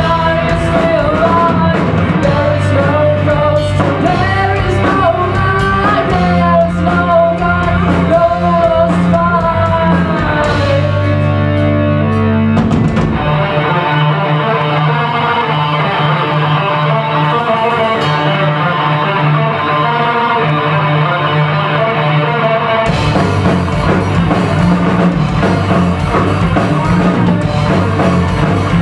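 A rock band playing live: a female singer over distorted electric guitars, bass and drums. For a stretch in the middle the cymbals and deepest bass drop out, leaving the guitars, then the full band with cymbals comes back in.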